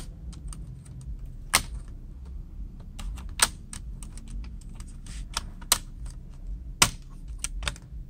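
Plastic palm rest of a Lenovo ThinkPad X230 clicking and snapping as its clips are prised free of the chassis by hand: scattered sharp clicks, the loudest about a second and a half, three and a half and seven seconds in.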